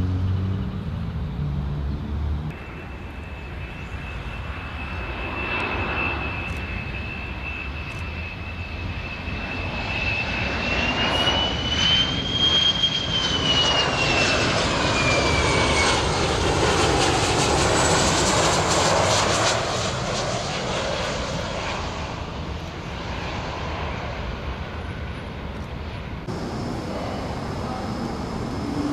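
Jet airliner flying past, its engines giving a high whine over a broad rushing noise. The whine rises in pitch as the plane approaches and drops as it passes, and the noise is loudest about halfway through before fading away.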